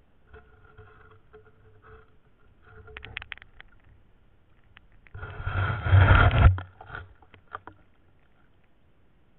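Water sounds heard underwater: scattered small clicks and knocks, then about five seconds in a loud, muffled rush of churned water lasting just over a second, followed by a few more knocks.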